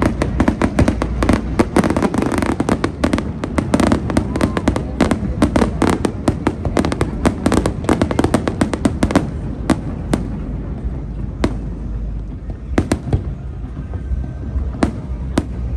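Fireworks display: a dense, rapid run of bangs and crackling for the first nine seconds or so, thinning out to scattered single bangs after that.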